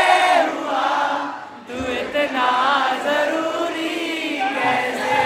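A man singing into a microphone through a PA, with a crowd singing along in chorus.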